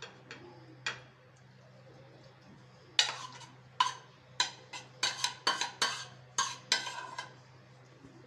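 A spoon clinking and knocking against plates as tuna salad is spooned from one dish into a serving plate: two light clicks, then a quick run of about a dozen sharp clinks over a few seconds.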